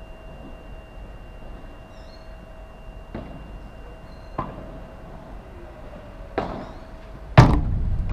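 Padel ball knocks: three scattered sharp hits or bounces, then a much louder knock with a deep low end near the end, over a faint steady hum.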